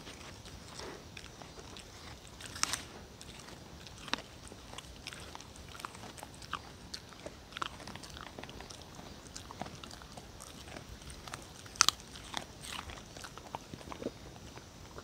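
A dog crunching and chewing a piece of Korean melon (chamoe) peel, in irregular crisp bites, the loudest about three seconds in and again near twelve seconds.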